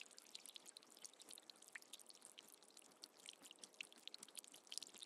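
Faint trickling water with many small, quick drips and splashes.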